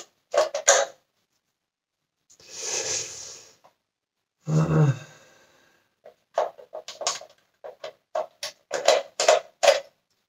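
Hard plastic parts of a Dyson cyclone cone assembly clicking and knocking against a small screwdriver and each other as screws are worked loose, a quick irregular string of short clicks, about four a second, in the second half. Earlier there is a breathy noise and a short low grunt.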